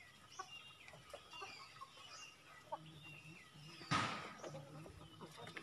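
Free-ranging chickens clucking faintly, with small chirps from other birds. About four seconds in comes one sudden loud, harsh sound that fades within half a second.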